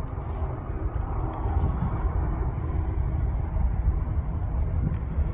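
CN diesel freight locomotive approaching, its engine rumbling low and steady and slowly growing louder.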